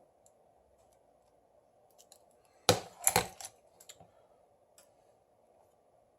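Small parts of a smartphone being handled during reassembly: one sharp click a little under three seconds in, a quick cluster of clicks just after, then a few faint ticks, over a faint steady hum.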